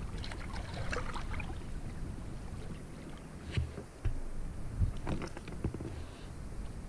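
Water lapping against a plastic fishing kayak's hull under a low rumble of wind, with a few short knocks on the boat between about three and six seconds in.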